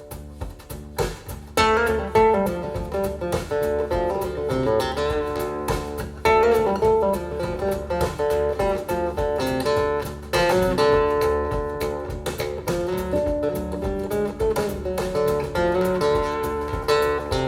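Acoustic guitar music with plucked and strummed notes, played back through Focal Grande Utopia EM floor-standing loudspeakers and picked up in the room. It dips briefly about a second in, then comes back with strong plucked phrases.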